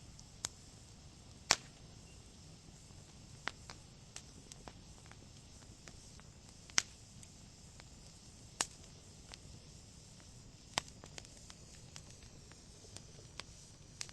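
Log fire crackling: irregular sharp pops and snaps from the burning wood, every second or so, a few of them much louder, over a faint steady low background.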